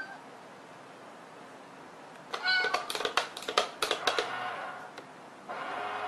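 Cat batting at a small toy box: a quick run of light taps and clicks starting about two seconds in and lasting about two seconds, with a short meow as they begin. A steady low hum comes in near the end.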